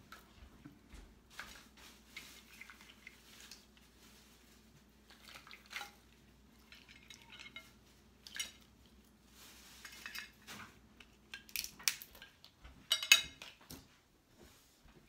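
Scattered clinks and clatters of dishes and cutlery as people eat at a table, with a short louder burst of clatter about 13 seconds in.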